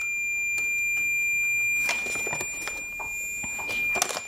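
Multimeter continuity beeper holding one steady high tone: the short between the attenuator nut and its pad, caused by tin whiskers, is still there. Light scraping and rustling from a sticky note dragged across the nut.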